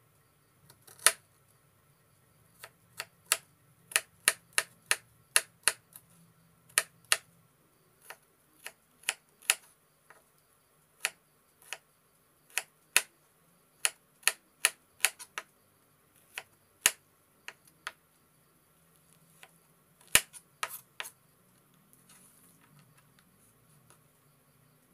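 Kitchen knife chopping red onion on a wooden cutting board: sharp taps of the blade striking the board at an uneven pace, about two a second, thinning out near the end.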